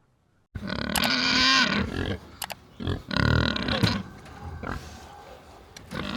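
Pigs grunting and calling, loud and varied, starting suddenly about half a second in after a moment of silence.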